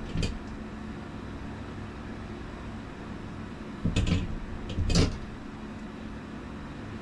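Knocks and clatter inside an ice-fishing house over a steady low hum: one short knock just after the start, then two louder clattering knocks about four and five seconds in.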